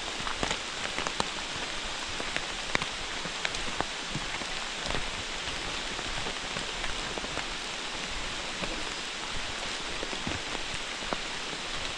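Steady rain falling in woodland, a continuous hiss with occasional short ticks of single drops close by.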